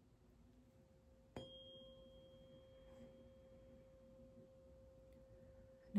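Sound-healing tuning fork struck about a second and a half in, ringing a steady pure tone with a faint high overtone that dies away after a couple of seconds. Before the strike, the same tone hums faintly.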